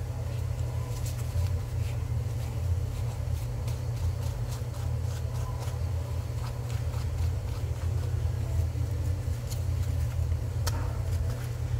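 A steady low mechanical hum runs underneath. Over it come light, irregular scratchy ticks of a small flat brush being scrubbed across carved foam stonework, dry-brushing.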